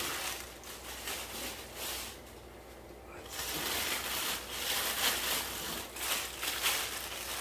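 Plastic fish-shipping bags rustling and crinkling as they are handled, irregular and uneven, with a quieter lull around two seconds in.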